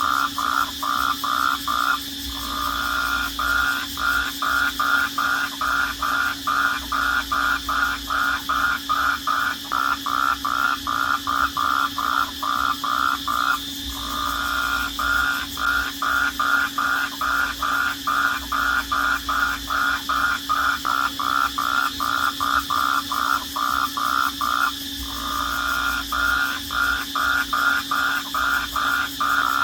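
Night chorus of calling insects or frogs: one call repeats in a steady pulse about three times a second, broken by short pauses roughly every eleven seconds, over a continuous high drone.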